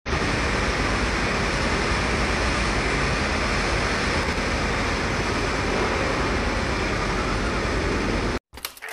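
Strong wind rushing over a phone's microphone during a tornado: a loud, steady rushing noise that cuts off suddenly near the end, followed by a brief electronic glitch effect.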